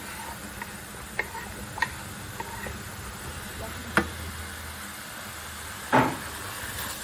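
Chicken and mushrooms sizzling in a frying pan, a steady hiss, with a handful of sharp clicks and taps from a wooden spatula against the pan; the loudest knock comes near the end.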